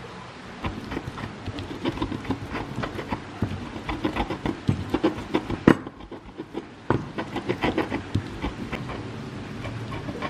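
Stone pestle pounding and grinding in a stone mortar (Indonesian ulekan and cobek), crushing fresh spices into a paste: quick, irregular knocks and scrapes. The loudest knock comes just before a brief pause a little past halfway.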